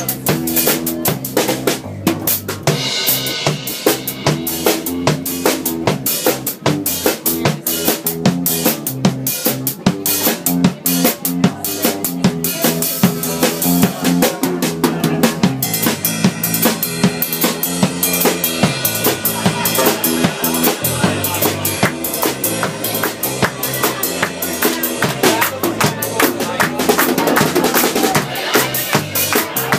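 Acoustic jam of strummed acoustic guitar and banjo, playing a fast tune over a steady, driving percussive beat.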